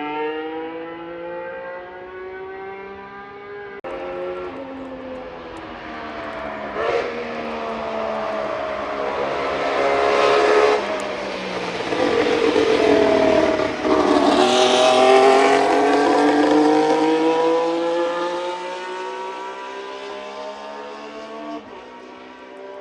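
Red Bull Ford Formula 1 car's 1.6-litre V6 turbo-hybrid engine at racing revs, pitch rising and falling through gear changes. Loudest in the middle, with brief sharp drops about 11 and 14 seconds in.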